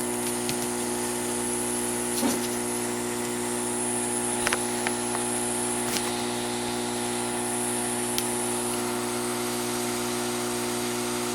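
Heat gun running with a steady hum and a high whine, blowing hot air to soften the adhesive under a home button dome switch. A few faint clicks sound over it.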